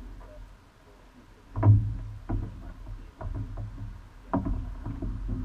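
Single racing scull under way: the oars knock in their oarlocks with each stroke, starting about a second and a half in and recurring a few times, over a low rush of water along the hull.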